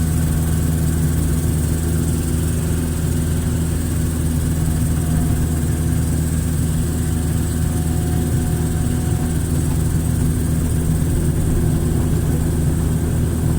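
Hitachi excavator's diesel engine running at a steady speed, without revving up or down.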